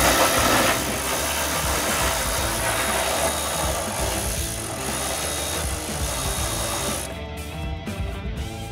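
Cordless electric ratchet running for about seven seconds as it spins a heat-shield nut loose, then stopping. Background music underneath.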